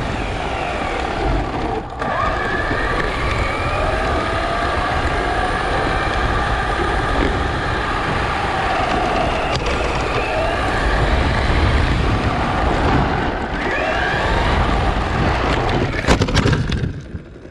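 Electric motor of a Traxxas Slash 4x4 RC truck whining up and down in pitch as it accelerates and slows, over a heavy rumble of tyres and wind on the onboard camera. Near the end come a few sharp clicks, and the sound falls away as the truck stops.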